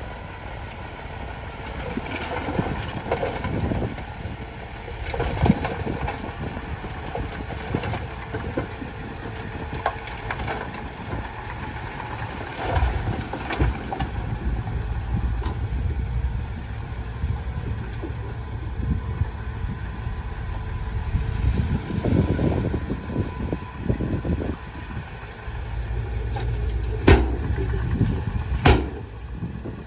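Bulldozer's diesel engine running steadily with uneven rises and falls, and two sharp metallic clanks near the end.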